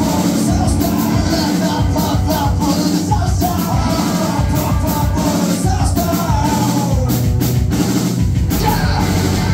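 Live rock band playing loud: electric guitars, bass and drums, with sung vocals over the top.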